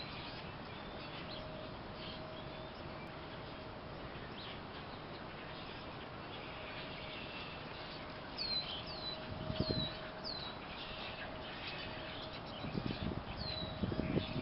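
Outdoor ambience with a small bird calling: short, high chirps that slide downward in pitch, a run of four about eight seconds in and another near the end, over a faint steady hum. A few low rumbles come in around ten seconds and again near the end.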